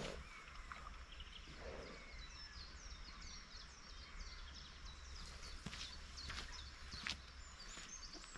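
Faint birdsong: a small bird repeating short, high chirps that each slide down in pitch, over a soft outdoor hiss. A few sharp clicks sound about six to seven seconds in.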